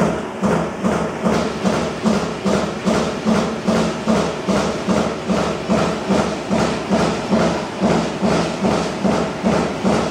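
Trumpf TC 2020R CNC turret punch press punching holes in sheet metal: an even, fast rhythm of punch strokes, about two to three a second.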